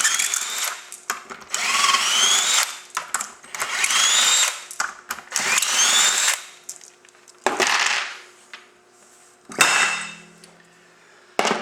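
Cordless drill with a Torx bit spinning out the dampener cover bolts of a PDrive clutch, in four bursts of about a second each, rising in pitch as the motor spins up. A couple of sharp metal knocks follow near the end.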